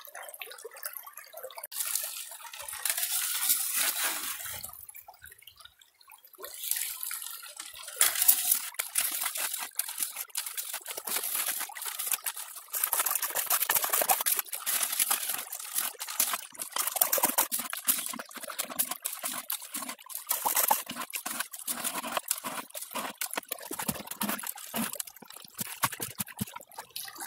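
Water splashing and gravel washing as scoops of pay dirt are poured into a small gold sluice box set in a shallow creek. It comes in repeated splashy surges with many small gravelly clicks, pausing briefly a few times in the first several seconds.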